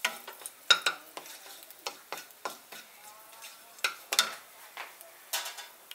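Wooden spatula scraping and tapping irregularly against a non-stick kadai while whole spices (bay leaves, dried red chillies, whole garam masala) sizzle in hot oil, a tempering being fried.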